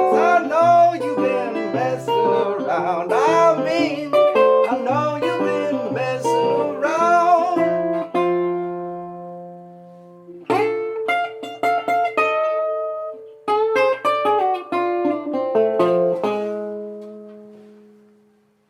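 Acoustic guitar playing the end of a rag tune: busy playing that stops on a ringing chord about eight seconds in, then a short run of closing chords ending on a last chord that rings out and fades away.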